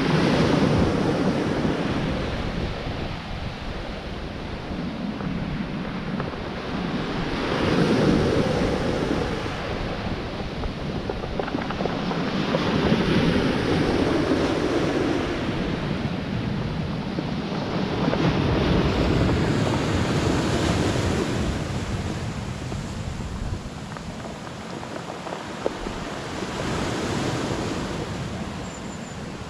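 Small waves breaking and washing back over a pebble beach, each surge swelling and fading about every five or six seconds. Wind buffets the microphone underneath.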